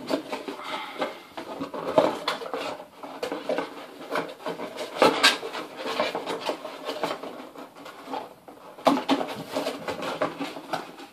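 Cardboard box being folded and handled: its panels rubbing and scraping, with irregular taps and knocks throughout.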